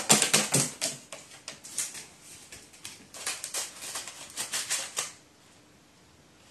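Crow pecking and crumpling a paper balloon in its beak: a quick, irregular run of papery crackles and rustles that stops about five seconds in.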